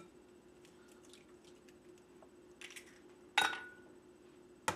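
An egg rapped against the rim of a glass mixing bowl to crack it: a sharp knock with a brief glassy ring about three and a half seconds in, and another knock near the end, over a faint steady hum.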